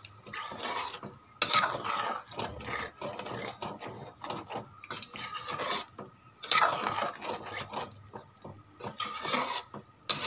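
A spatula stirring and scraping through a thin potato and soya chunk curry gravy in a kadhai, in uneven strokes with short pauses.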